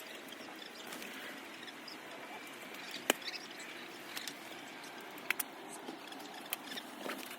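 A ratchet strap being untangled and handled: faint rustling of the webbing, and a few sharp clicks of its metal buckle, the loudest about three seconds in.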